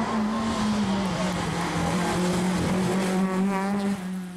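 Rally car engine held at high revs at a steady pitch as the car drives through the stage, dropping away about four seconds in.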